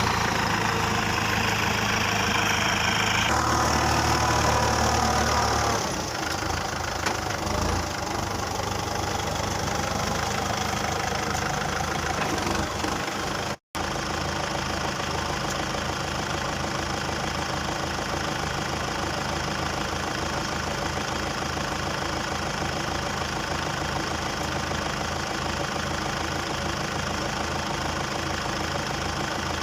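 Kubota farm tractor diesel engine running under load for the first several seconds, then dropping to a lower, steady, evenly pulsing run. The sound cuts out for an instant about halfway through, then the steady engine carries on.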